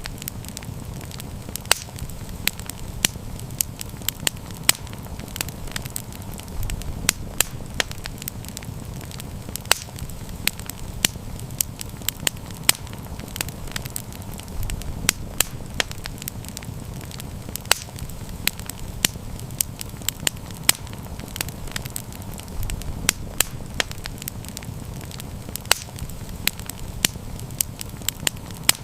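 Campfire burning: wood crackling with frequent sharp, irregular pops over a steady low rumble of the flames.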